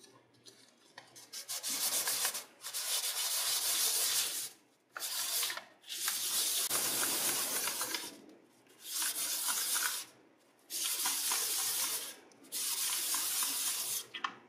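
An old brass lighter body rubbed by hand against a sheet of sandpaper, making a scratchy sanding sound. It comes in seven spells of back-and-forth rubbing, each one to two seconds long, with short pauses between.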